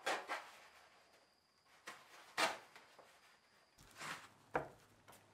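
Work noises from laying rock wool insulation slabs on a floor: about half a dozen separate short rustling scrapes and soft knocks as the slabs and membrane are handled and someone steps about.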